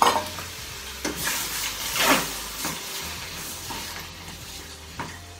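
Chopped vegetables frying in olive oil in a pan, sizzling, as fresh tomato is added and stirred in, with a few knocks of the spoon against the pan. The sizzle quietens as the tomato goes in.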